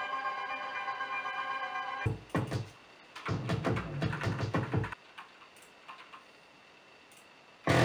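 Electronic music from an Arturia MicroFreak synthesizer. A held chord sounds for about two seconds, then a few seconds of deep bass and drum hits, then it drops almost to quiet with a few faint clicks.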